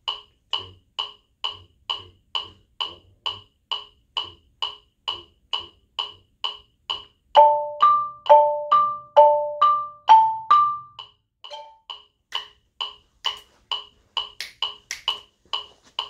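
Metronome clicking steadily, a bit over two clicks a second. About halfway through, a Yamaha marimba is struck with mallets for a short, louder passage of seven or eight ringing notes stepping back and forth between two pitches, then the clicks carry on alone.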